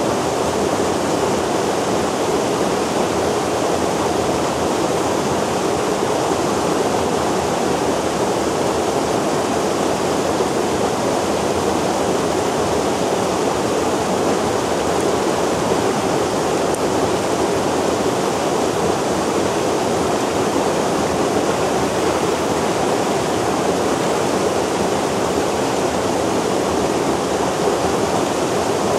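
Mountain stream water rushing steadily, an unbroken, even roar of flowing water.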